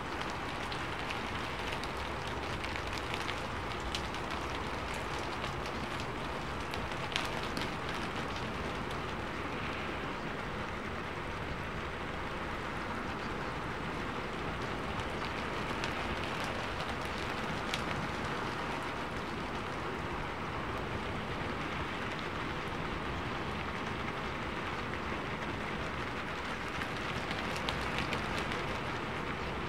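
Steady rain: an even hiss of rain falling on a surface, with a few sharper drop ticks scattered through it.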